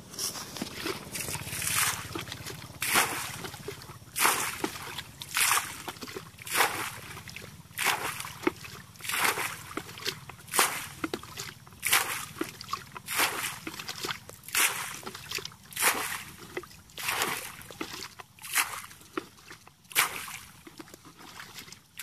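Water bailed from a muddy pool with a plastic basin: a regular splash and slosh about once every second and a bit, each scoop of water thrown out onto the bank.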